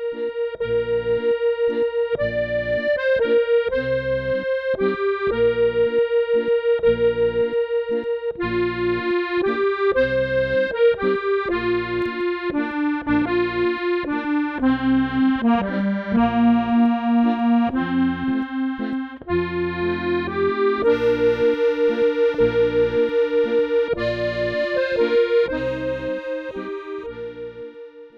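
Accordion playing a slow Scottish air: a sustained melody over regular left-hand bass and chord pulses. Near the end it fades out on a final held note.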